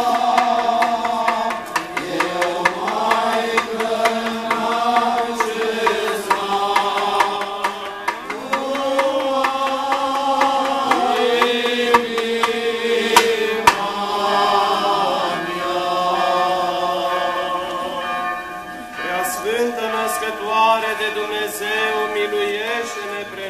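A group of male Orthodox clergy chanting a hymn together, holding long notes that slide from one pitch to the next. Small sharp clicks are scattered through the singing.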